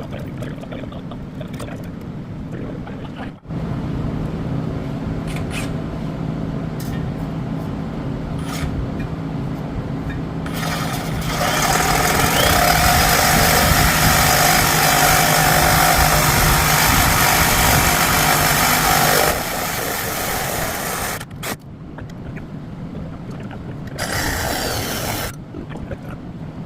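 Chevy Cobalt engine running with a leaking exhaust, a steady low drone that sounds like a race car. In the middle comes a much louder hissing noise for about eight seconds, then a shorter burst of it near the end.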